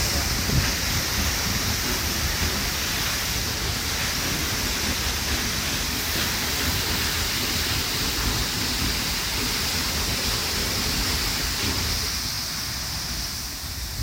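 Large waterfall plunging into its pool: a steady, even rush of falling water and spray that eases slightly near the end.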